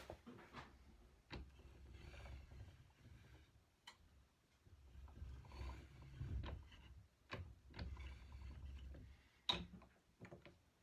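Hand-cranked jeweller's rolling mill flattening gold wire between its flat rolls: a faint low rumble in stretches of a couple of seconds as it is turned, with scattered clicks and knocks, the sharpest about nine seconds in.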